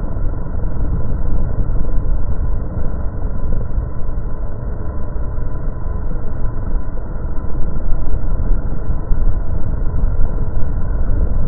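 Quadcopter motors and propellers with heavy wind buffeting, heard muffled and rumbling through the drone's onboard camera. A steady, unbroken drone with a faint hum running through it.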